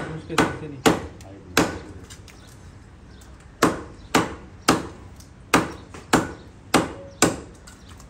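Meat cleaver chopping raw chicken on a thick wooden chopping block: about ten sharp chops, three, then a pause of about two seconds, then seven more at a steady pace of about two a second.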